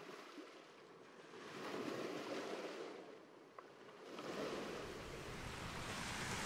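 Sea surf washing in on the shore: a soft rush of breaking waves that swells, falls away, and builds again about four seconds in.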